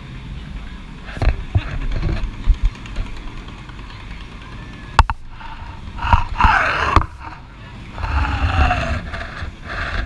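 Rapids ride raft drifting on churning water, with water rushing and uneven wind rumble on the microphone. There are a couple of sharp knocks about five and seven seconds in, and riders' voices call out around six to nine seconds in.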